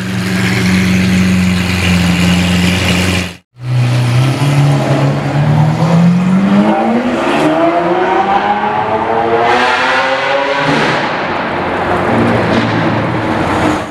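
Lamborghini Aventador SVJ V12 on a Ryft straight-pipe exhaust, idling with a deep steady burble. After a brief dropout about three and a half seconds in, it accelerates hard: the revs climb steadily for about six seconds, then drop suddenly at an upshift near the end.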